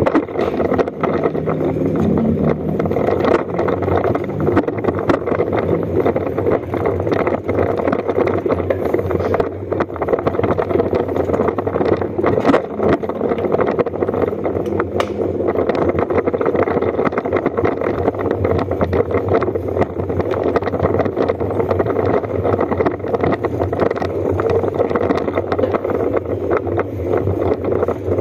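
Motorcycle engine running steadily at low speed as the bike rolls slowly along.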